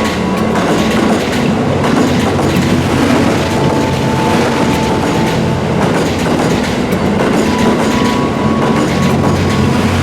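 JR West Series 87 Twilight Express Mizukaze train passing close by, its wheels clicking over the rails in a loud, steady run of noise.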